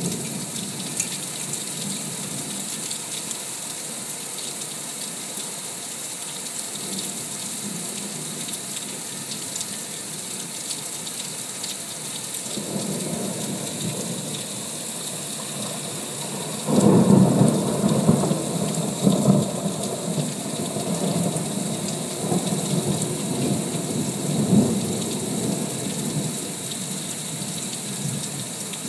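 Heavy rain falling steadily during a thunderstorm, with a long roll of thunder. The thunder starts faintly a little before halfway, turns loud a little past halfway and rumbles on in several swells before fading.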